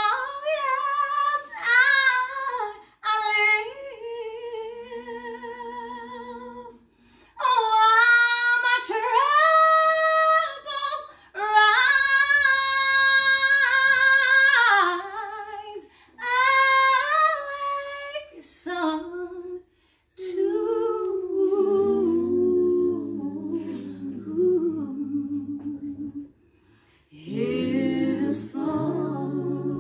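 A woman singing unaccompanied in a gospel worship style. She sings long held notes with vibrato in phrases broken by short pauses, then moves to lower notes in the last third.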